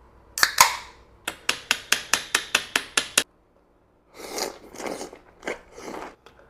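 Two knocks, then about ten sharp, evenly spaced clicks at roughly five a second that stop suddenly, followed after a pause by a few scraping, rustling sounds.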